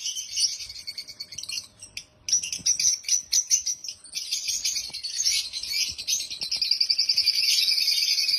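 African lovebirds chirping in rapid, high-pitched chatter, breaking off briefly about two seconds in, then growing denser and steadier from about five seconds on.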